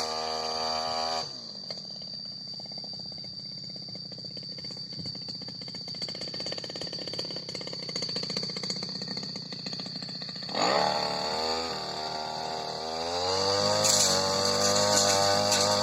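Supra SPR328 brush cutter's small two-stroke engine at high revs, dropping to a rapid idle about a second in and idling for about nine seconds, then revving back up near the end.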